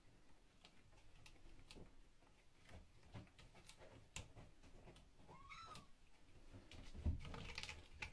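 A Pixiebob kitten gives one short, faint meow about halfway through. Around it are scattered faint taps and scuffles, with a few louder thumps near the end.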